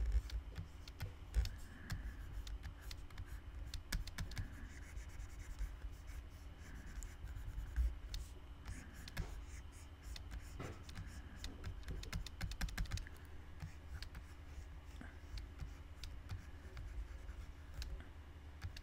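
Stylus tapping and scratching on a drawing tablet while inking: irregular light clicks mixed with short scratchy pen strokes.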